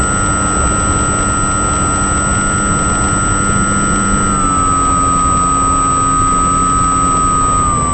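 A steady, loud engine drone with a high whine that steps down slightly in pitch about halfway through and again near the end.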